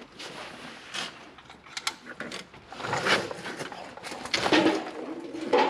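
Irregular clattering and scraping of metal tools and parts being handled, in several separate bursts a second or two apart.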